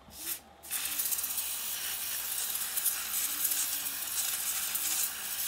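Aerosol contact cleaner sprayed through a thin straw nozzle into an oscilloscope's sticking push-button switches. A brief puff comes first, then one long steady hiss of about five seconds that cuts off suddenly.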